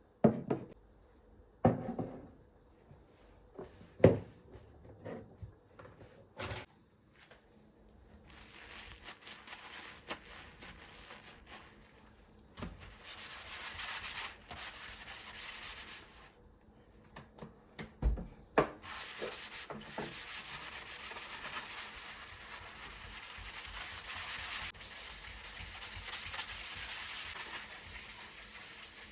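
Kitchen handling sounds: several sharp knocks of utensils or dishes in the first few seconds and again a little past the middle, then long stretches of steady rubbing or scraping.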